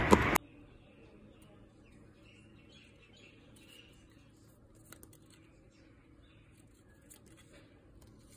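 Loud street noise, with sharp clicks, cuts off abruptly within the first half second. Then near silence: faint room tone with a few light rustles and one small click about five seconds in.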